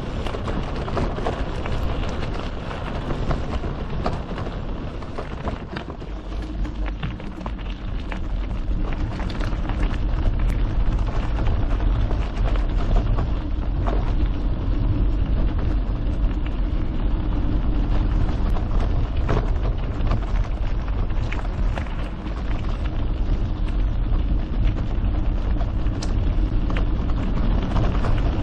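Mountain bike rolling along a trail, heard from a GoPro: a steady hiss of tyres on the trail surface over heavy wind rumble on the microphone, with scattered clicks and rattles from the bike. It gets a little louder about a third of the way in.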